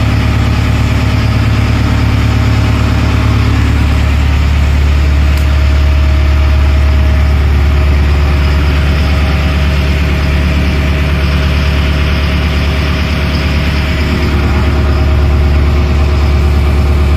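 A boat's engine running steadily at a constant speed, heard close up as a loud, even low hum.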